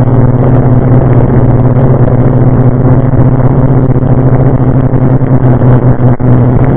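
Steady low electrical buzz over hiss on an analog FPV video feed's audio channel, not changing in pitch, with a brief dropout about six seconds in.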